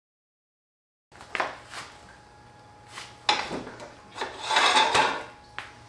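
Starting about a second in, a few sharp knocks and clicks and a longer scraping rub, over a faint steady hum.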